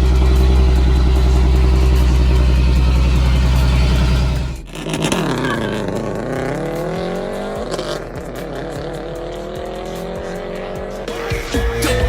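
Car engine sound: a loud, steady low rumble for the first few seconds, then a sudden change to an engine revving up as a car accelerates, its pitch rising twice. Music starts near the end.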